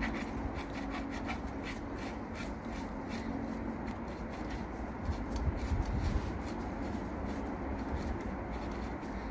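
Workshop handling noise: many small clicks, with rubbing and scraping of tools and bike parts being worked by hand and a low rumble. A slightly louder bump comes a little past the middle.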